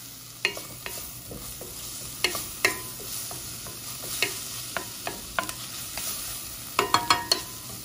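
Wooden spoon stirring and scraping diced onion, garlic, ginger and spices around a stainless steel sauté pan over a steady sizzle of hot olive oil, the spices toasting in the oil. Sharp knocks of the spoon against the pan come throughout, a quick cluster of them near the end, some leaving the pan ringing briefly.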